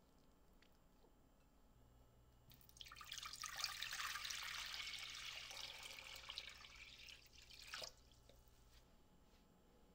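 Water running, likely from a kitchen tap, for about five seconds, starting about two and a half seconds in and cutting off near the end, over a faint low hum.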